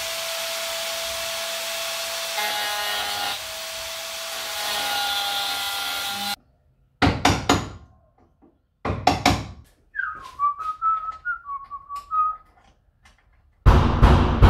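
A handheld power tool runs steadily on the truck's cab, its motor pitch rising as it spins up and dipping briefly under load, then stops about six seconds in. A few sharp knocks follow, then a short whistled run of notes and a loud burst of sound near the end.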